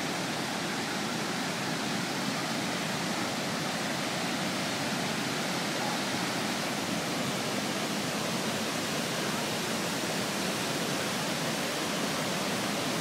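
Steady roar of a river in full flood, muddy floodwater surging and churning through a washed-out gap in the road.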